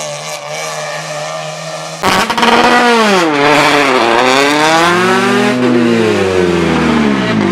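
A rally car's engine, faint and steady at first. Then, after a sudden change about two seconds in, a rally car's engine is heard close and loud, revving hard at the stage start and accelerating away, its pitch repeatedly dipping and climbing.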